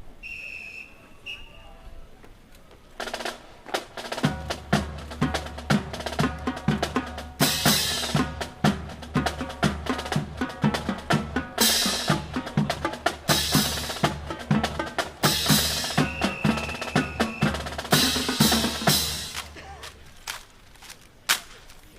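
Drum-cadence percussion for a rifle drill: snare drum rolls and rimshots over bass drum, with several louder crashes. It starts about three seconds in and stops near the end.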